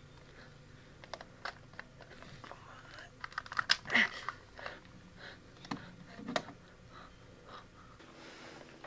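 Irregular sharp clicks and knocks, a few at first, then a quick cluster about halfway through and a couple more after.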